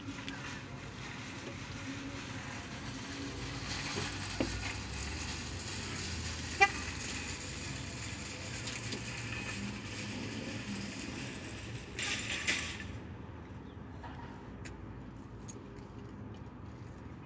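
Car interior noise: a steady low engine hum heard from inside the cabin, with a single sharp click about six and a half seconds in and a short rush of noise around twelve seconds.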